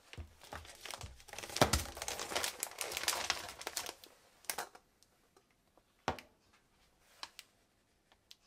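Plastic ingredient packets and foil-wrapped chocolate bars crinkling as they are handled and set down on a kitchen counter for about four seconds, followed by a few light knocks as items are put down.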